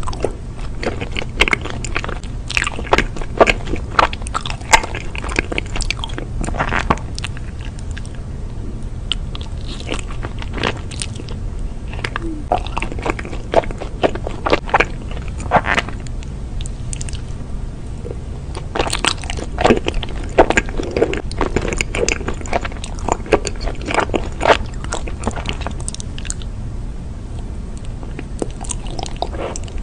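Close-miked biting and chewing of chocolate-coated ice cream: the chocolate shell cracks and crunches in clusters of crisp crackles, with quieter spells of softer chewing between, over a steady low hum.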